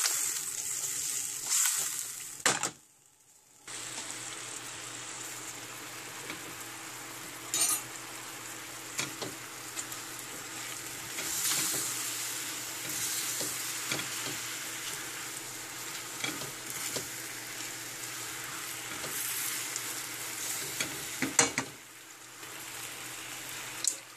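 Chicken pieces sizzling in a hot skillet, stirred with a spatula that scrapes and knocks against the pan now and then. The sizzle drops out briefly about three seconds in.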